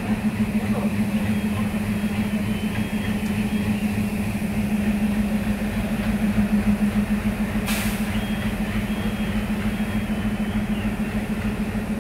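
Diesel locomotive engine idling, with a steady hum over a pulsing low throb. A short hiss comes about two-thirds of the way through.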